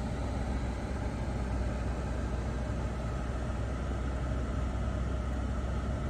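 Steady low hum with a light hiss inside a 2015 Land Rover Range Rover's cabin, even and unchanging throughout.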